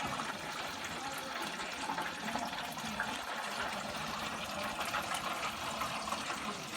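Chicken deep-frying in hot oil: a steady bubbling sizzle with fine crackling throughout.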